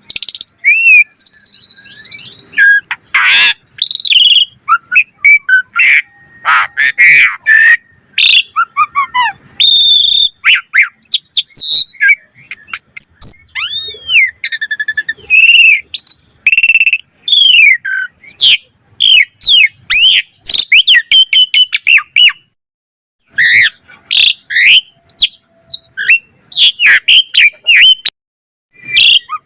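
Asian pied starling (jalak suren) singing a fast, varied song of whistled glides, chirps and rasping notes, with a couple of short breaks.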